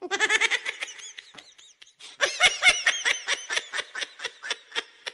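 High-pitched laughter in quick, rhythmic pulses: a short bout at the start, then a longer one from about two seconds in.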